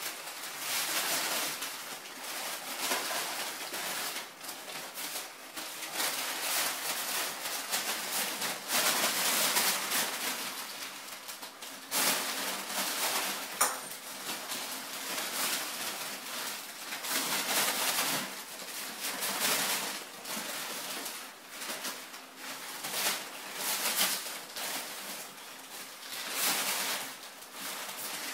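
Crumpled brown kraft paper rustling and crinkling in irregular bursts as kittens pounce on it and burrow through it, with a couple of sharp clicks midway.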